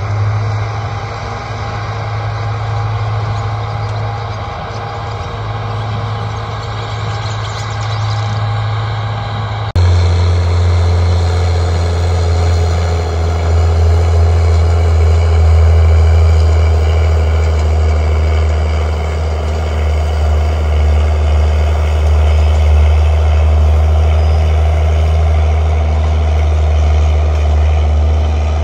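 Case International 9130 tractor's diesel engine running steadily under tillage load, a low drone that changes abruptly and gets louder about ten seconds in.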